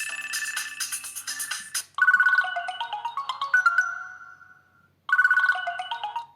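Samsung Galaxy GT-S6802 phone playing ringtones through its speaker: a busy electronic tune with clicking beats ends about two seconds in, then a new ringtone starts, a falling run of bright notes that fades out, comes again after a short pause and is cut off.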